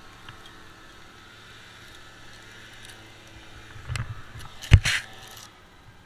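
A climber's body and gear knocking and scraping against a pine trunk close to the microphone as he shifts position aloft: a few knocks, one hard thump, then a brief scrape, over a faint low hum.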